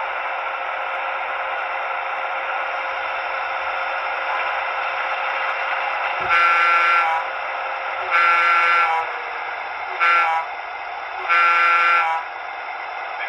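Sound decoder of a Broadway Limited Paragon3 Nickel Plate Road SD9 model diesel locomotive, playing the recorded idle of the prime mover. About halfway in, after a click, the horn sounds four times: long, long, short, long, the grade-crossing signal.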